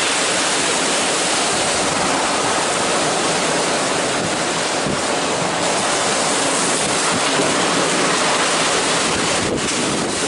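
Typhoon storm wind blowing hard through trees, a loud, steady, dense rush of noise with no letup.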